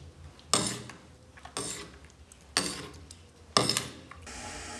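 Four sharp clinks, about one a second, like dishes or utensils being knocked about on a counter, each with a short ring. Near the end a steady hiss starts.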